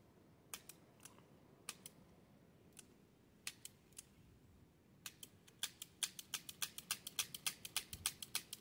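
Hi-Standard Sentinel .22 revolver being cocked and its hammer snapping down on spent and misfiring rimfire rounds: dry metallic clicks with no shot going off, a few scattered at first, then a quick run of clicks from about halfway through. The rounds misfire because the hammer is not striking hard enough, which the owner puts down to old gunk in the neglected gun.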